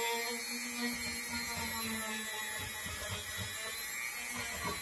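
Dremel rotary tool with a polishing nub running steadily as it buffs a chromatic harmonica's metal slide with aluminum polish, smoothing the slide's surface. About two seconds in the steady hum drops away, leaving an uneven low rumble.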